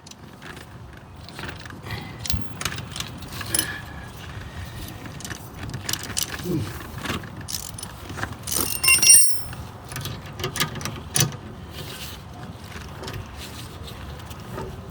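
Scattered metal clicks, knocks and scrapes as a brake caliper and tools are worked into place against the hub, with one louder ringing metal clink about nine seconds in.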